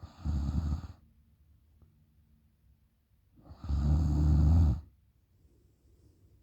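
A woman snoring loudly through an open mouth: a short snore just after the start and a longer one about three and a half seconds in, with faint breathing between.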